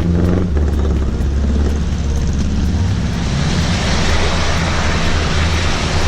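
A vehicle engine running steadily under load, with a rushing noise that builds from about three seconds in.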